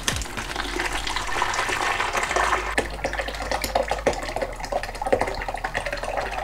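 Cherry and honey mead must poured from a stainless steel stockpot into a plastic brew bucket: a continuous splashing pour with many small irregular splashes.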